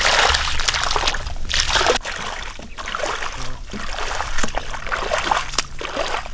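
Shallow water splashing and sloshing in irregular bursts, loudest for about the first two seconds.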